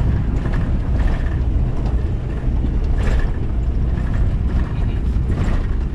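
Van driving along a dirt road, heard from inside the cabin: a steady low rumble of engine and tyres with light rattling from the body.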